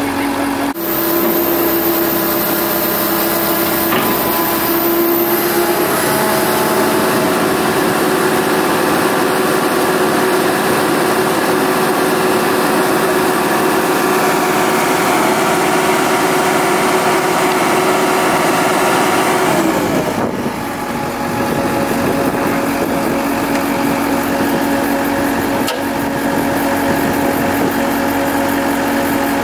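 Komatsu PC160 excavator's diesel engine running steadily. Its speed steps up about a second in, holds, and falls back to a lower idle about twenty seconds in.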